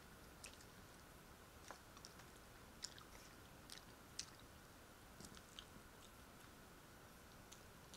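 Faint chewing of food, with scattered short wet mouth clicks and smacks.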